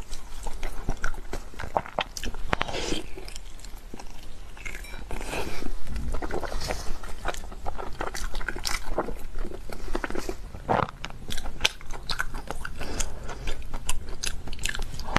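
Close-miked eating of sheep brain wrapped in sheep tripe: wet biting, chewing and mouth smacks, heard as many irregular clicks.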